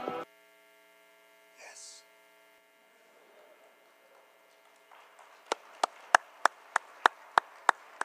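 Music cuts off just after the start, leaving a faint steady electrical mains hum. From about five and a half seconds in, one person claps steadily close to the microphone, about three claps a second.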